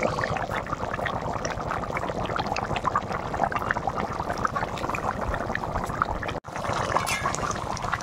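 Chicken and giant-taro curry bubbling at a boil in a steel kadai, a dense stream of small pops and gurgles. It breaks off for an instant at about six and a half seconds, then carries on.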